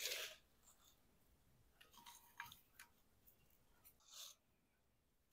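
Near silence with a few faint, short crunchy rustles of buttered graham cracker crumbs being handled, near the start, about two seconds in and again about four seconds in.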